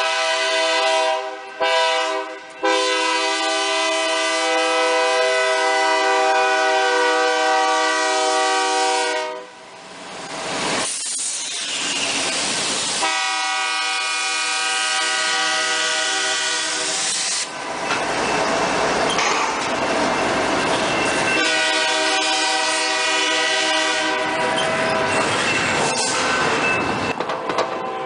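Diesel freight locomotive's multi-chime air horn blowing long blasts as the train approaches, cutting out twice briefly near the start. It gives way twice, about a third of the way in and again about two-thirds in, to the loud rushing rumble of the locomotives and cars passing close by, then sounds again.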